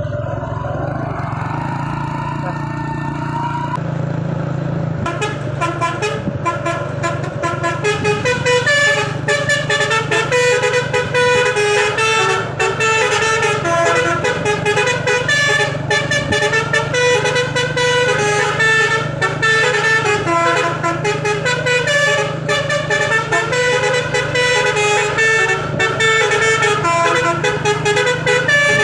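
Telolet basuri V3 multi-tone air horn on a UD Trucks Quester playing a loud, fast tune of rapidly changing notes, starting about five seconds in and running on. Underneath is a steady low hum from the truck.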